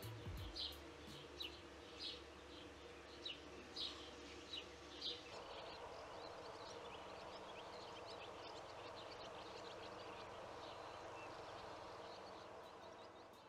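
Small birds chirping, short high calls repeating every half second to a second, over a quiet outdoor background. About five seconds in the chirps thin out and a soft, even rushing noise takes over, fading near the end.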